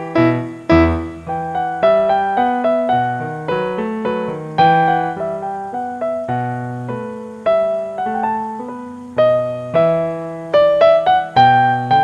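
Background piano music: notes struck one after another and dying away, a melody over a slower bass line.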